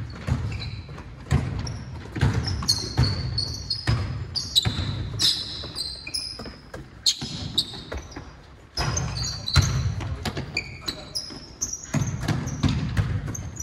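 Basketball bouncing on a hardwood gym floor as it is dribbled, with sneakers squeaking in short high chirps, echoing in the large hall. It goes quieter for a couple of seconds around the middle, then picks up again.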